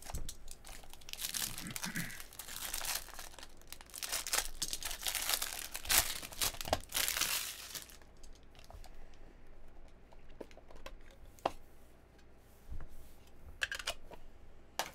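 Bowman Chrome trading-card pack's foil wrapper being torn open and crinkled for about the first eight seconds; after that, quieter handling of the cards with scattered light clicks and taps.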